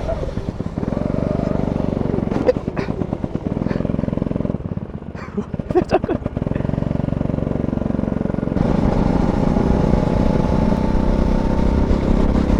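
Single-cylinder go-kart engine running hard during a race lap. It eases off about four and a half seconds in, with a few brief knocks, and opens up louder again near eight and a half seconds.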